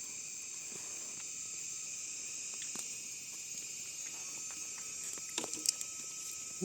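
Steady, high-pitched chorus of forest insects, with a few light clicks and scrapes about five seconds in.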